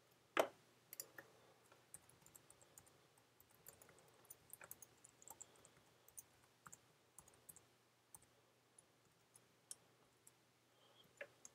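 Faint clicks of a computer keyboard and mouse: one sharper click about half a second in, then scattered light keystrokes of typing.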